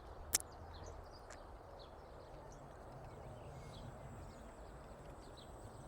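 Outdoor background noise with faint, scattered bird chirps and a sharp click about a third of a second in.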